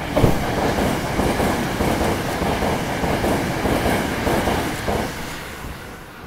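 Hankyu electric train passing through a station at speed on the near track without stopping, its wheels clattering rapidly. The sound starts loud and sudden as the train arrives and fades away from about five seconds in, once the last car has gone by.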